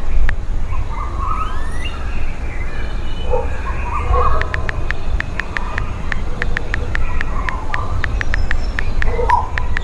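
Outdoor ambience: a steady low rumble like wind on the microphone, with irregular runs of sharp clicks and a few short whistling calls.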